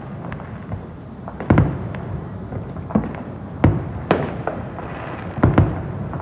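Fireworks going off: a string of sharp booms and cracks, several of them in quick pairs, with smaller pops between and a low rumble lingering after each burst.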